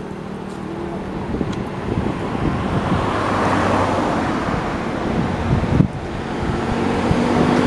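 Road traffic: a motor vehicle passing, its engine hum and tyre noise swelling through the middle and easing off.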